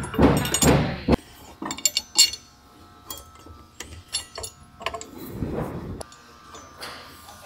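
Scattered light metallic clinks and clicks of tools and metal fittings being handled during work on a boat's shaft-clutch linkage.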